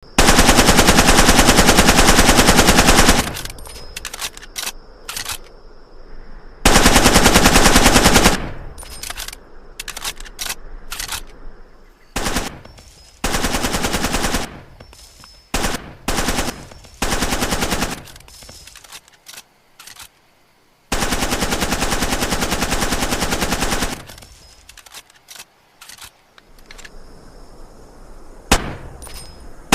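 Uzi submachine gun firing on full auto in bursts: several long bursts of about two to three seconds, shorter bursts of about a second, and a few single shots in between.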